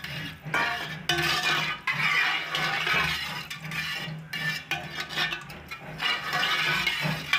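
Metal kitchen utensils clinking and scraping against pots and dishes, irregular and continuous with a few brief pauses.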